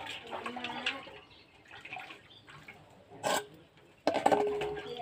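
Hand-washing dishes in a basin of water: scattered splashing and dripping. About four seconds in, a steel bowl clanks down on concrete and rings briefly.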